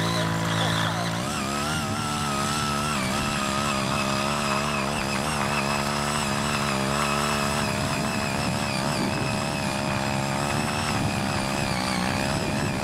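Small engine of a hand-tractor rotary tiller running under load as its tines churn through dry hillside soil. The engine note wavers up and down as the blades bite into the ground.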